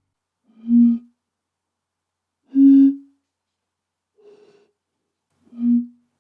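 Four short, breathy, hooting notes blown across the mouths of bottles partly filled with water, each bottle giving a different pitch according to how much water it holds. The first two are loud and close in pitch, the third is faint and higher, and the fourth drops back to about the first note.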